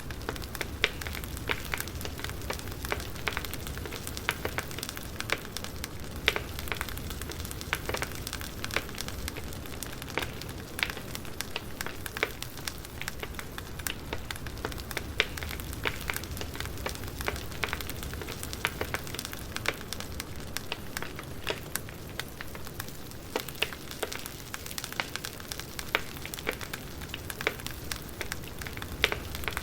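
Campfire burning: a steady low rumble and hiss of the flames with frequent sharp, irregular crackles and pops from the burning wood.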